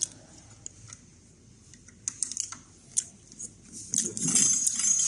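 Brake adjustment: a few sharp metallic clicks, then about a second from the end a disc brake rotor scraping against the pads with a thin high ring. It is the abnormal brake rubbing noise that the off-centre caliper is being set to cure.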